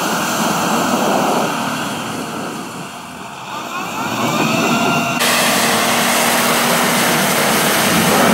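Nissan Patrol SUV's engine running as it crawls through mud, easing off and then revving up again. About five seconds in, the sound cuts to a Mitsubishi L200 pickup's engine revving hard with its wheels spinning in mud.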